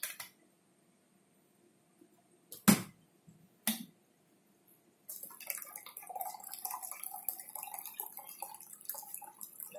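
A few sharp knocks of plastic bottles and caps being handled on a counter, the loudest a little under three seconds in. From about five seconds in, a drink pours from a plastic shaker bottle into a cup.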